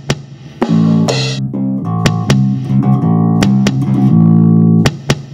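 A guitar being played: held low notes with sharp percussive clicks among them, stopping abruptly near the end.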